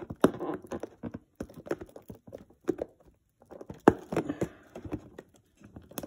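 Fingernail picking and scratching at a peel-off sticker on a plastic clamshell salad container, an irregular run of clicks, taps and short scrapes against the plastic.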